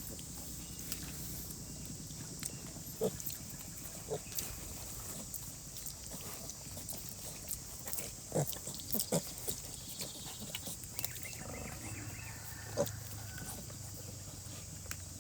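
Pigs giving short, separate grunts a few seconds apart over a steady background hiss.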